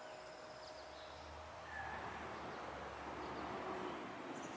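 Quiet outdoor ambience: a steady hiss with a low rumble over the first three seconds or so and a few faint bird chirps.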